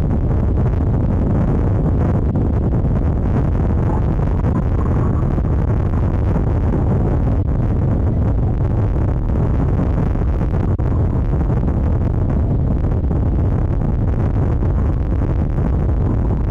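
Steady low rumble of a moving vehicle, with wind buffeting the microphone of its roof-mounted camera.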